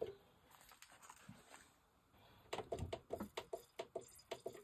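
Music leaking faintly from a Sony MDR-CD900ST studio headphone held to the ear at low volume: quick repeated pitched notes, which drop out for about two seconds and then return.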